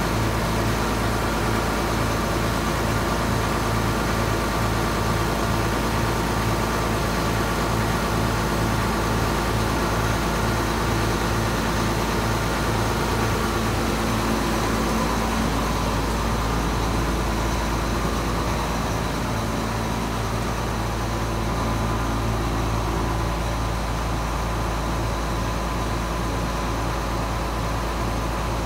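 John Deere 7720 Titan II combine's six-cylinder diesel engine running steadily at idle, its first run after sitting since last fall, heard inside a steel machine shed.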